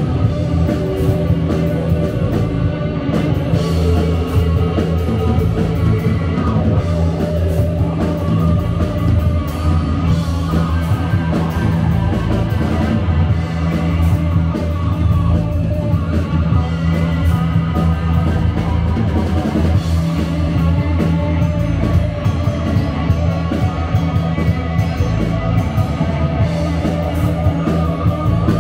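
Live rock band playing: a Telecaster-style electric guitar leads over bass guitar, drum kit, synths and keyboards, with a full, steady sound and a heavy low end.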